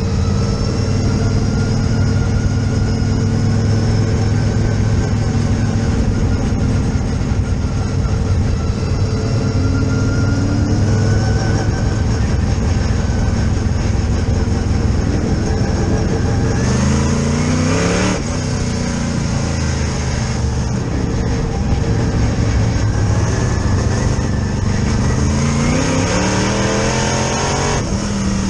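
Race car engine heard from inside the cockpit, running hard at a steady pitch. A little after halfway and again near the end the revs drop and then climb back up.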